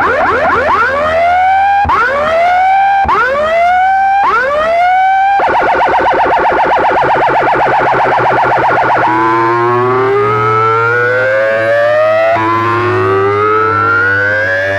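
Electronic siren effects played loud through a DJ sound system: a few swooping sweeps about a second apart, then a fast warble, then slow rising wails that repeat every few seconds, over a steady low hum.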